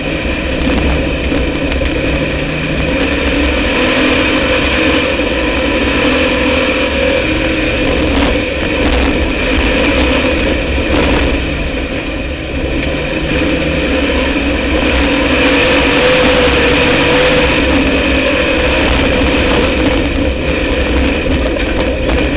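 Dirt-track race car's engine heard on board, running hard and steady, its note rising and falling slightly as it laps, with scattered ticks and rattles over it.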